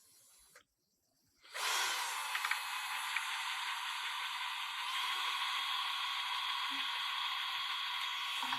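A steady hissing noise that starts abruptly about a second and a half in, after a moment of silence, and runs on evenly with a faint high whine.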